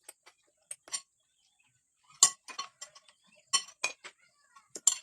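Cutlery clinking against a plate while eating: about ten short, sharp clinks at irregular intervals.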